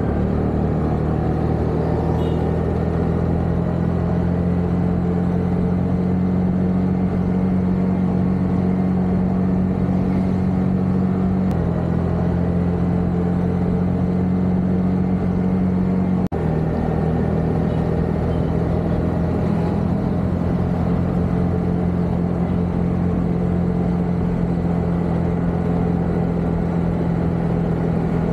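Honda motor scooter's engine running steadily at cruising speed, a constant low drone that cuts out for an instant about sixteen seconds in.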